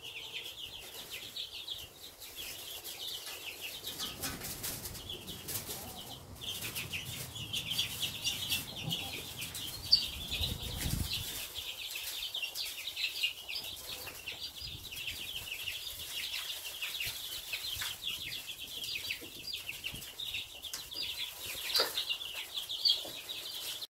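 A brood of two-week-old Marans chicks peeping constantly, many high short peeps overlapping. A low rumble runs for several seconds near the middle, and a sharp click comes about ten seconds in.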